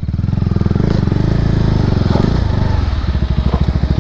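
Single-cylinder sport motorcycle engine running off-road, a steady rapid pulsing from the exhaust that dips briefly about two and a half seconds in.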